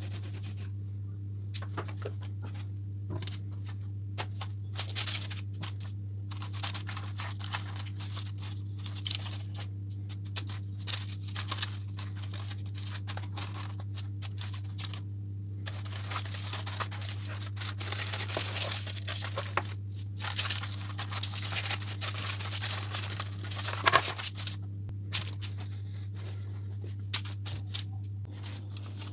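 Hands working bread dough: a wooden rolling pin rolling it out, then the dough being pressed and shaped on parchment paper in a baking tray, with rustling and crinkling of the paper that is thickest in the second half. A steady low hum runs underneath.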